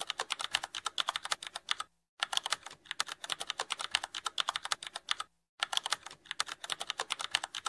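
Computer keyboard typing sound effect: rapid keystroke clicks, about ten a second, with two brief pauses, about 2 and 5.5 seconds in.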